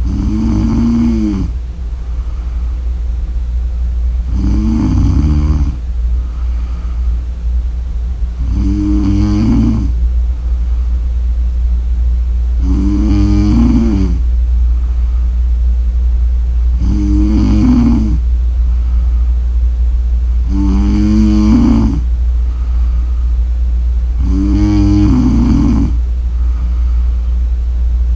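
A woman snoring in a regular rhythm: seven buzzing inhaled snores, each about a second and a half long and coming about every four seconds, over a steady low hum.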